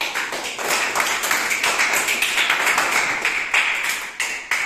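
A small group of students and their teacher clapping their hands together, a dense run of quick claps.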